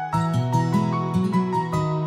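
Instrumental background music: a melody of short notes over sustained lower notes.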